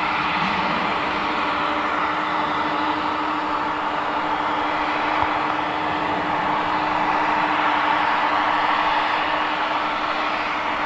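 Jet engines of a Japan Airlines twin-engine wide-body airliner running on the runway: a steady rush of jet noise with a constant low hum under it, swelling slightly a few seconds in.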